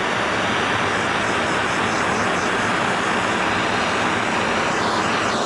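MAPP gas torch burning with a steady hiss, heating the cracked aluminum rim so the repair rod will flow into the crack.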